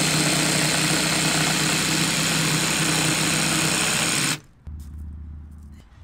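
Jigsaw sawing through a pine batten, a loud steady buzz of the blade stroking through the wood, which stops abruptly about four seconds in.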